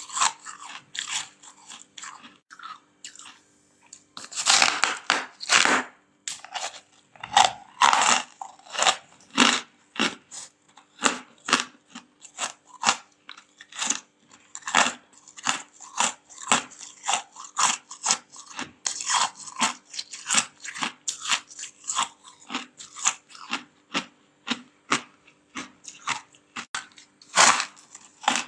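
Mouthfuls of soft freezer frost crunching as they are bitten and chewed, a steady run of crisp crunches about one or two a second, with a few louder bites, over a faint steady hum.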